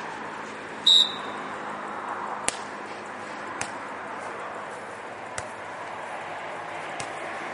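A referee's whistle gives one short, shrill blast about a second in, then four sharp slaps of hands striking a beach volleyball one to two seconds apart: the serve and the rally that follows. A steady murmur of background voices runs underneath.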